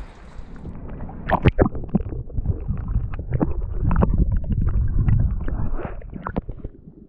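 Handling knocks and clicks on an action camera, then muffled sloshing and a deep underwater rumble as the camera is dunked under the water; the rumble is loudest in the middle.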